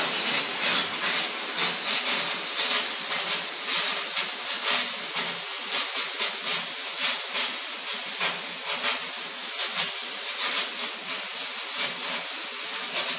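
Kärcher DE 4002 steam cleaner jetting steam through its red-tipped nozzle onto bathroom tiles and grout, a loud, steady hiss.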